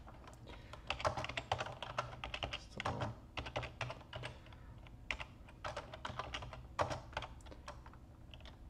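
Typing on a computer keyboard: quick runs of key clicks with short pauses between them, as a terminal command is typed out.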